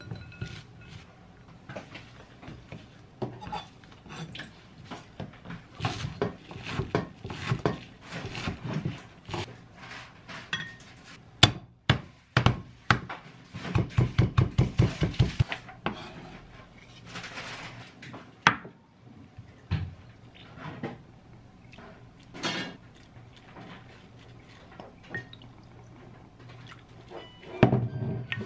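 Kitchen prep sounds. A kitchen knife chops and presses wild chives on a wooden cutting board, with a quick run of strokes at about four a second midway. Scattered lighter knocks and rustles come from hands tossing julienned radish in a glass bowl, and near the end a wooden spoon clatters against a glass container.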